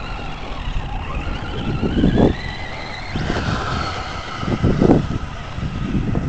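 Electric RC truck's brushless motor whining. The pitch climbs over the first three seconds as the truck speeds up, then falls back a little. Two louder low thumps come about two and five seconds in.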